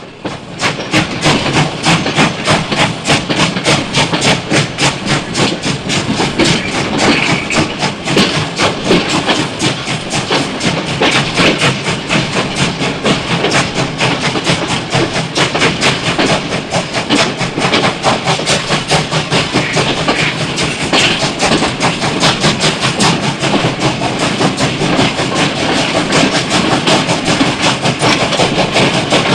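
Train running, with a fast, even clatter that keeps up at a steady level.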